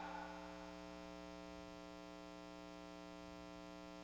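A quiet, steady electrical hum from the sound system, the room's reverberation of the last spoken word fading away right at the start.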